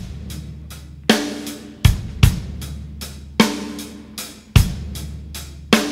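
Background music: a song's drum-kit intro, with bass drum, snare and hi-hat playing a slow, steady beat that starts suddenly.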